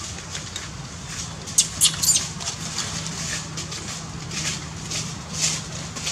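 Infant long-tailed macaque crying in short, high-pitched squeaks, three in quick succession about a second and a half in, then more every half second or so. A steady low hum runs underneath.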